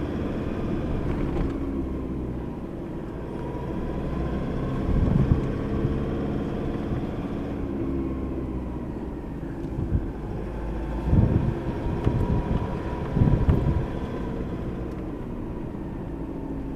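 Four-wheel-drive engine running steadily, heard from inside the cabin over a low rumble of tyres on a dirt track. A few louder thumps come about five, eleven and thirteen seconds in.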